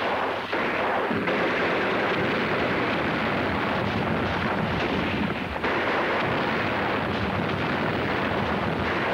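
Battle sound effects from a war film: an unbroken din of gunfire and explosions.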